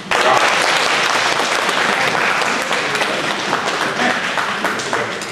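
Audience applauding, breaking out suddenly and thinning out gradually toward the end.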